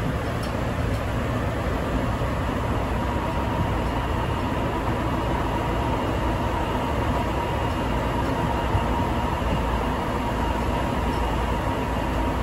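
Sapporo Subway Tozai Line rubber-tyred train running between stations, heard inside the car. It is a steady rumble, with a faint steady whine that comes in a few seconds in.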